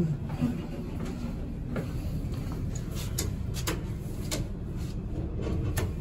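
Innovation push buttons on a stainless-steel elevator car panel clicking several times as they are pressed, about three to six seconds in, over a steady low rumble.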